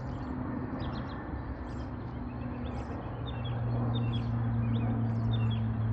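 Low, steady drone of a Lockheed C-130J Super Hercules's turboprop engines and propellers, growing louder about halfway through, with birds chirping repeatedly over it.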